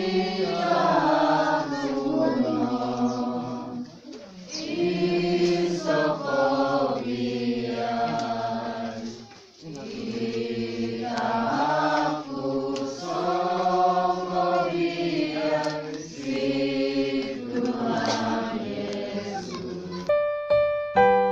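A small congregation singing a hymn together, in long phrases with short breaks between them. Near the end an electric piano tune comes in.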